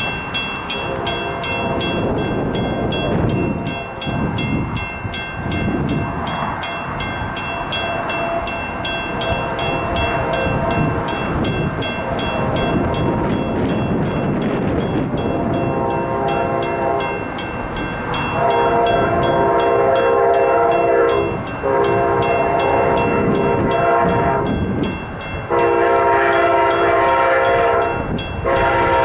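Train passing while a train horn sounds its chord in repeated blasts, the longest and loudest in the last ten seconds, over the rumble of the train and a fast, even ticking.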